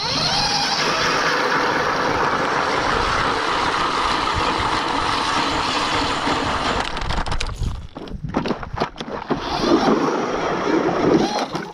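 Battery-powered electric ice auger boring through soft lake ice: a steady churning of the motor and cutting blades for about seven seconds, then the sound turns uneven, with short gaps and surges, near the end.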